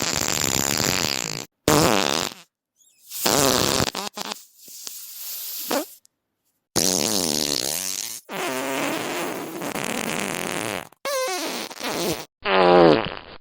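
A string of about seven separate fart sounds played one after another with short silent gaps, several of them sliding down in pitch and one trailing off into a long fading sputter.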